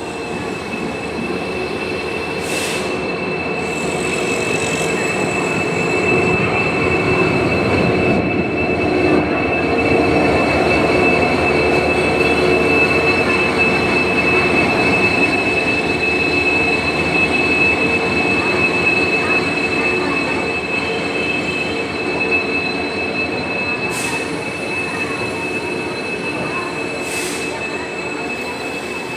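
Passenger train running on the rails, its rumble growing louder over the first ten seconds or so and then slowly easing off, with a steady high-pitched wheel squeal held over it.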